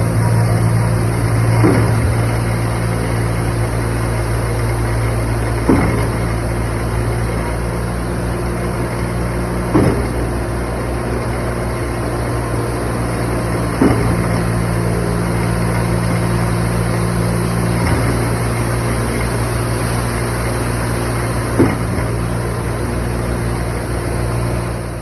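Concrete pump truck's diesel engine running steadily, with a short knock about every four seconds as the pump's pistons change stroke and push concrete down the line.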